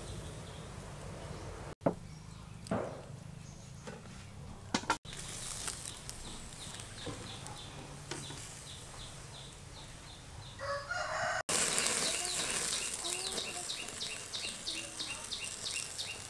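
Chickens clucking and birds chirping in the background, with a few short knocks as a pork leg is laid and handled on a wire grill rack over charcoal in the first few seconds. From about two-thirds of the way through, the background is louder, with rapid repeated chirping.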